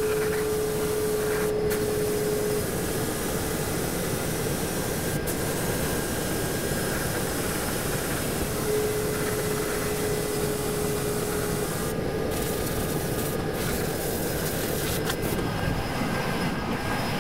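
Guyson media-blasting cabinet running: a steady hiss of compressed air and blast media on a motorcycle exhaust part. A faint steady hum comes in twice underneath it.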